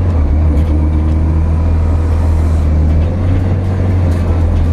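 VW Polo race car's engine running while being driven, heard from inside the cabin: a loud, steady low drone.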